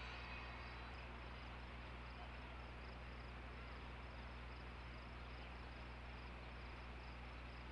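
Steady outdoor background noise with a low, constant hum, and a faint high chirp repeating about three times a second.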